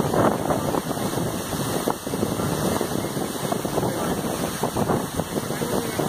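Waterfall pouring down a rock face: a steady rush of falling water, with wind noise on the microphone.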